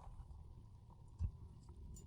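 A single dull thump about a second in, over a faint low rumble.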